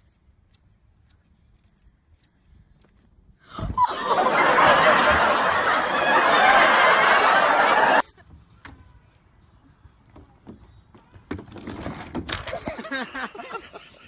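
A thump about three and a half seconds in, then loud laughter for about four seconds that cuts off suddenly; later fainter laughter and voices.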